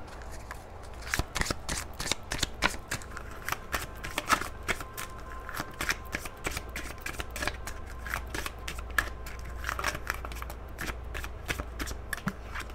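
A deck of oracle cards being shuffled by hand: a long run of quick, irregular soft clicks and flicks as the cards slide and slap against each other.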